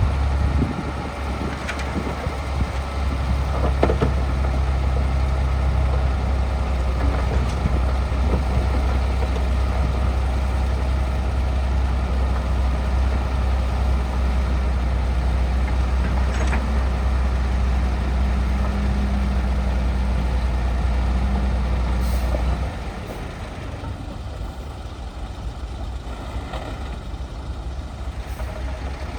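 Heavy diesel earthmoving machine working under load: a loud, deep, steady engine drone that drops away suddenly about three-quarters of the way through, leaving a lighter rumble. A few short knocks and clanks sound now and then.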